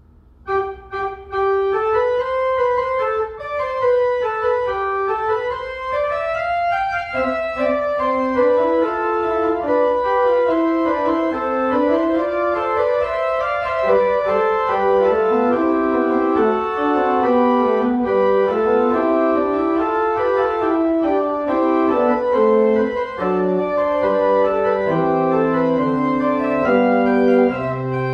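Church pipe organ playing the postlude: a flowing melody over sustained chords that starts about half a second in, with deep pedal bass notes coming in near the end.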